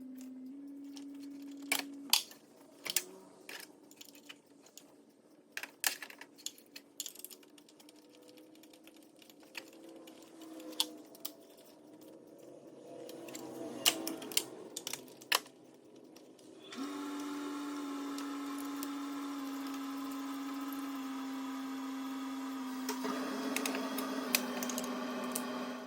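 Irregular sharp metallic clicks and taps of hand tools and engine parts while new spark plugs are fitted into a V6 engine by hand. Held background-music notes come in about two-thirds of the way through and play to the end.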